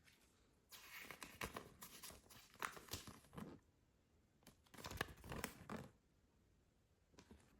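Packaging crinkling and tearing in two bursts of handling, the first a few seconds long and the second shorter.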